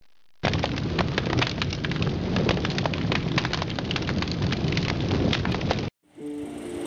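A large fire burning: dense crackling and popping over a steady rumble. It cuts off abruptly near the end, and a different steady noise follows.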